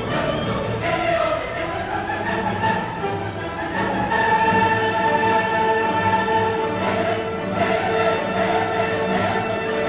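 Classical orchestral music with a choir singing sustained chords.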